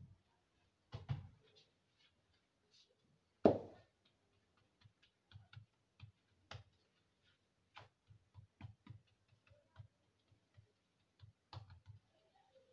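Hands pressing and patting a ball of batbout bread dough flat on a floured granite counter: scattered soft taps and knocks, with one louder thump about three and a half seconds in.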